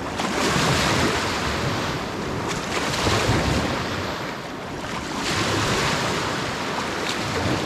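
Baltic Sea waves washing in, rising in three swells a couple of seconds apart, with wind on the microphone.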